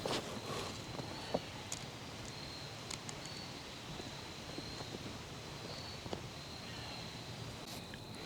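Faint scattered knocks and rustles of a person moving about on foot in the woods, over a steady high-pitched insect trill.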